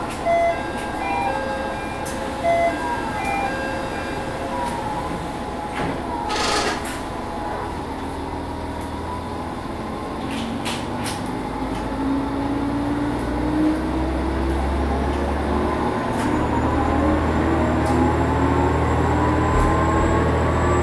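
Matsuura Railway MR600 diesel railcar pulling away from a stop, heard from inside the car. A few short beeping tones come first, then a hiss of air about six seconds in. The diesel engine then picks up, its pitch rising steadily as the railcar accelerates.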